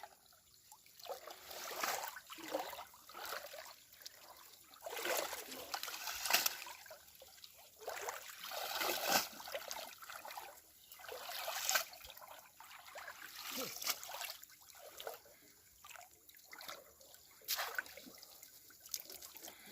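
Water sloshing, splashing and trickling in irregular surges, like water being stirred or poured off by hand in shallow water.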